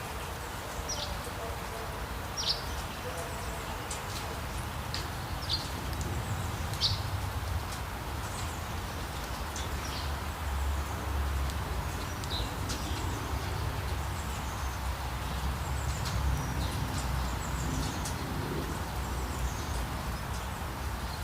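Steady rain falling over a low rumble, with a bird giving short, sharp, falling chirps every second or two, mostly in the first half.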